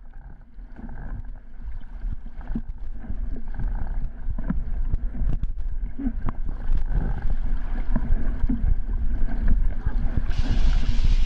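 Water rushing and splashing along the hull of a small sailing dinghy heeled over under sail, with wind buffeting the microphone. It rises out of silence over the first couple of seconds, and a louder hiss of spray comes in near the end.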